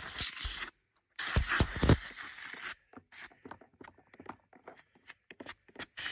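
Short, sharp clicks and light knocks from hands working on the robotic mower's body. The first part sits in a steady hiss; the sound cuts out completely for a moment about a second in, and from about three seconds on there are only scattered clicks between silences.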